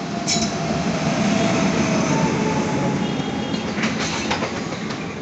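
Express passenger train behind an electric locomotive running past at speed: a steady heavy rumble of wheels on rail that swells in the middle, with a few sharp clacks as the wheels cross rail joints.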